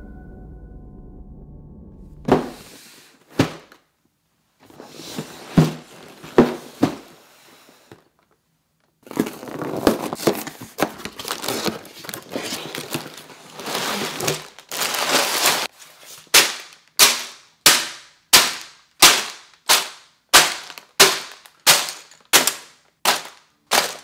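A Lego set's cardboard box being handled and opened: a few knocks, then several seconds of cardboard tearing and plastic bags of bricks rustling as they are pulled out. After that come about a dozen evenly spaced sharp slaps, roughly one and a half a second, as the bags of bricks are set down one after another.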